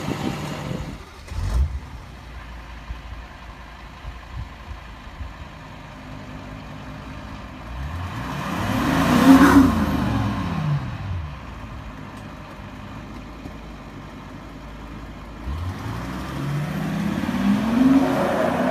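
Volkswagen Phaeton's diesel engine idling, given one throttle blip that climbs and falls back about halfway through, then revving up as the car pulls away near the end. A short thump sounds about a second and a half in.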